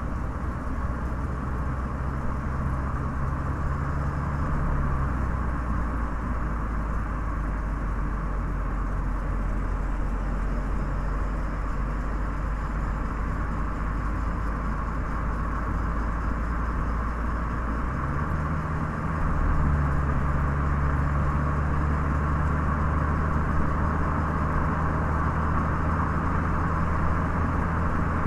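Car driving with steady tyre and road noise under a low engine hum. The engine note drops about five seconds in, then rises again about two-thirds of the way through and gets a little louder.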